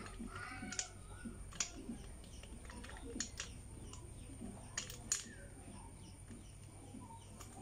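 Scattered light metallic clicks and taps as the oil filter cover and its bolts are fitted by hand onto a motorcycle engine case, about seven in all.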